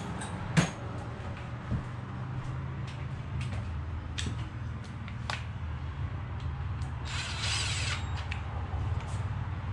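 Cordless drill driving in a small engine bolt in one burst of about a second, near the end. Before it come a few sharp clicks of parts and tools being handled, the first and loudest about half a second in, all over a steady low hum.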